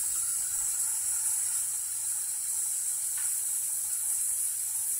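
Compressed air hissing steadily out of a 2006 Freightliner's air brake system while the trailer release valve is held in, bleeding the air tanks down toward zero pressure.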